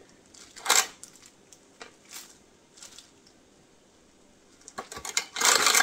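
Plastic glove crinkling and rubbing as a gloved hand presses glitter snowflake decorations flat onto resin coasters: a short rustle a little under a second in, a few faint touches, then a longer rustle near the end.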